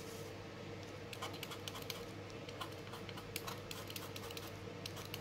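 Knife blade scraping a soft pastel stick, shaving pastel powder onto paper: quick, irregular scratchy ticks starting about a second in, over a faint steady hum.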